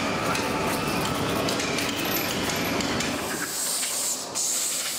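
Scuffing and small clinks as loose sand is wiped by hand off the face of a resin-sand mold. About three and a half seconds in, a compressed-air blow pipe starts hissing as it blows the dust off the mold.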